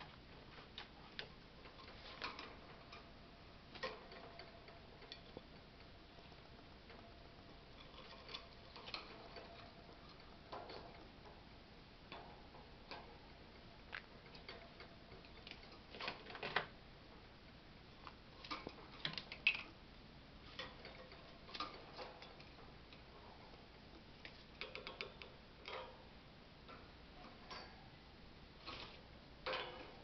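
Scattered light clicks and taps at an irregular pace, with louder clusters around the middle: a green-cheeked conure moving about its wire cage, its beak and claws knocking on the bars and perches.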